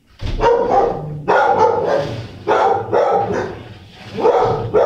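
Dog barking loudly in four bursts, each about a second or so apart.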